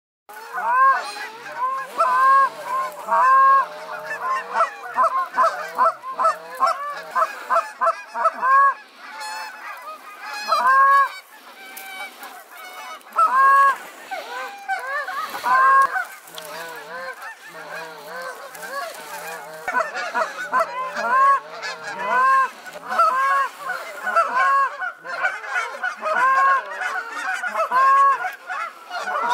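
A large flock of Canada geese honking in flight overhead: many short, arching honks overlapping almost without a break.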